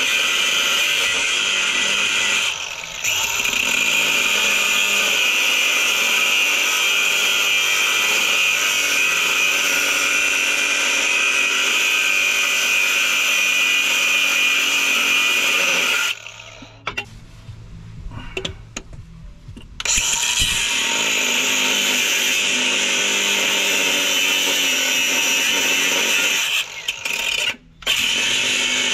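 Power tool grinding and cutting through a car's flywheel, a loud, steady high-pitched whine. It stops for about four seconds a little past the middle, then starts again, with brief dips near the start and near the end.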